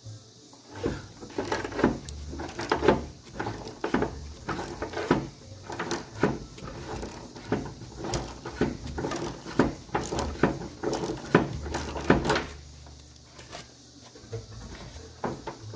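Irregular clicks and clunks of a truck's rear door latch assembly and its cables being handled and worked loose inside the door, stopping about twelve seconds in.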